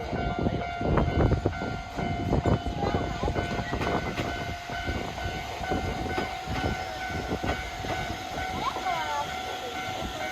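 Train passing over a level crossing, its wheels knocking irregularly over the rails with a rumble, while the crossing's warning bell keeps up a steady tone.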